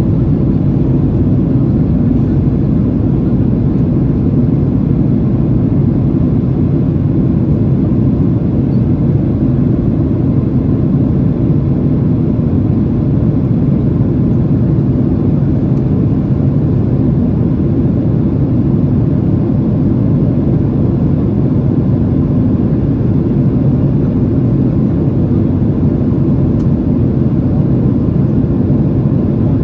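In-flight cabin noise of a twin-engine Boeing 767-300ER: the engines and the air rushing past the fuselage make a steady low rumble that holds even and unbroken.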